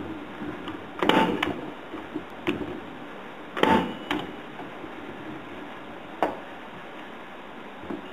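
Punch-down tool seating and trimming Cat6 wires in a patch panel's terminals: two loud snaps about two and a half seconds apart, with several lighter clicks between and after.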